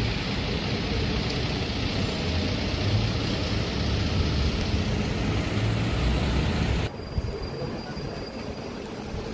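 Loud vehicle rumble with a heavy low drone that cuts off abruptly about seven seconds in, leaving quieter street noise.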